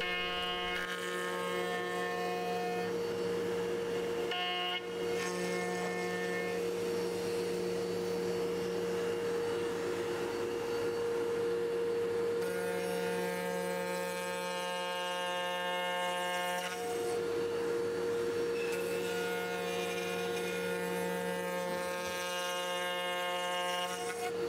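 Table-mounted router running with a bearing-guided template cutter taking a full-depth cut in a solid guitar body. It gives a steady whine, with a higher ringing that comes and goes several times as the load changes. The pitch of the cut tells the operator how much wood is being removed.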